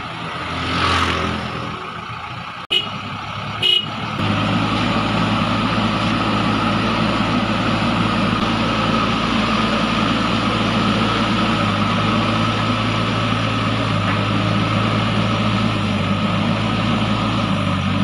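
JCB backhoe loader's diesel engine running steadily and loudly from about four seconds in, just after a brief horn toot. Before that, a motor scooter passes by.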